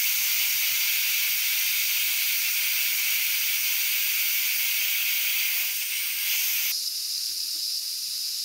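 Instant Pot electric pressure cooker venting steam through its pressure-release valve during a quick release: a steady, loud hiss, the cooker still under pressure. About seven seconds in the hiss becomes thinner and a little quieter.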